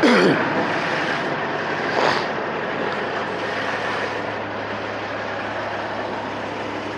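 Peterbilt 589 semi truck idling with a steady low hum under a hiss of air, with a loud burst of hissing air falling in pitch at the start and a second, shorter one about two seconds in.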